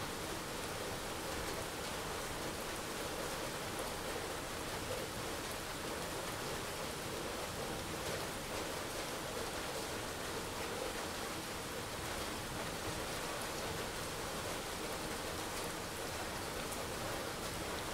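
Steady rainfall: an even, unbroken hiss of rain with a few faint ticks of single drops.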